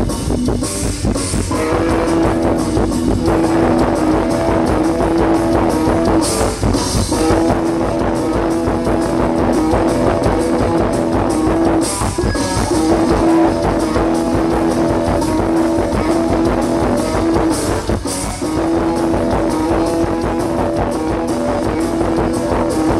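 A band playing live: a steady drum beat under held melody notes, in a phrase that repeats about every six seconds.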